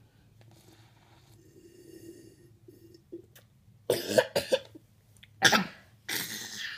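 A toddler coughing after gulping a drink from a glass: a quick cluster of coughs about four seconds in, then two more single coughs.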